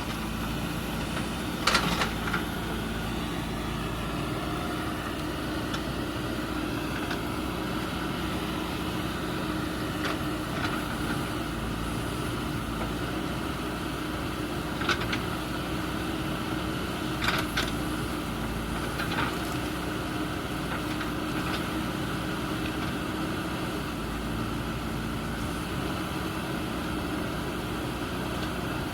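JCB backhoe loader's diesel engine running steadily, with a few short sharp knocks about 2, 15, 17 and 19 seconds in.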